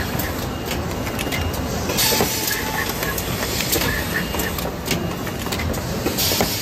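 Automatic paper box-making machine running: a steady mechanical clatter with scattered clicks, with background voices of a crowded exhibition hall.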